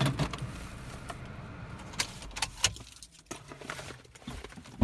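Sharp clicks and light rattles inside a stopped car's cabin, over a low rumble that drops away about three seconds in.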